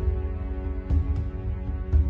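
Background music only: a song with held tones and a soft low beat about once a second.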